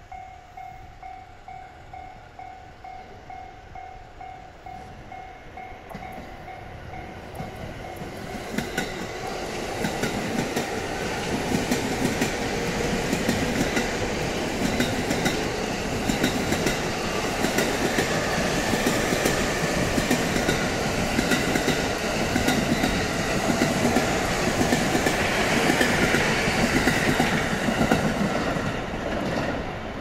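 Level crossing alarm bell ringing in a steady two-tone pulse, about two strokes a second, stopping about six seconds in. Then a 15-car JR E231 series electric commuter train approaches and passes, its wheels clattering over rail joints with a loud running rumble that eases near the end.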